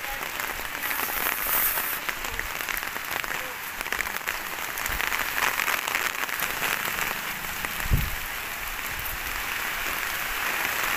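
Heavy rain pouring steadily, a dense hiss of drops on the wet street and roofs, with a single dull thump about eight seconds in.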